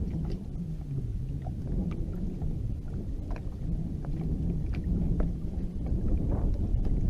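Wind rumbling on the microphone and water lapping and ticking against a bass boat's hull, with a low wavering hum underneath.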